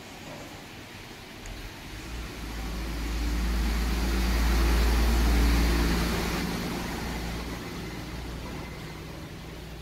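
A motor vehicle passing by: low engine rumble and road noise swell to a peak about five seconds in, then fade away.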